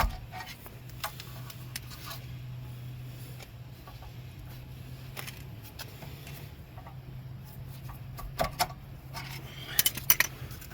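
Metal clinks and scrapes of a flathead screwdriver working at the rusted, stuck parking-brake star wheel adjuster inside a Ford Edge's rear brake, with a burst of sharper clinks near the end. A steady low hum runs underneath.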